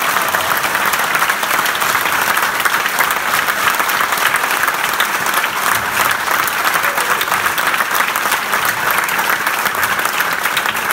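Many people applauding: a dense, steady clapping of a large crowd's hands.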